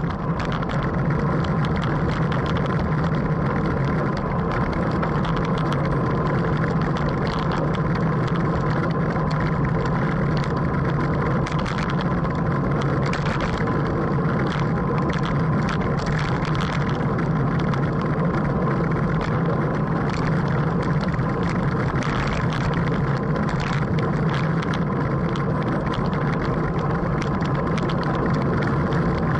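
Steady wind rush and tyre-on-road noise picked up by a camera mounted on a racing bicycle moving at about 17 mph, with a constant low hum.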